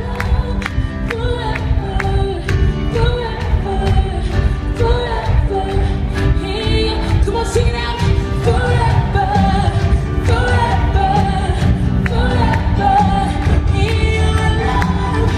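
Live worship band playing a song with a singer's lead vocal, over a steady drum beat and heavy bass.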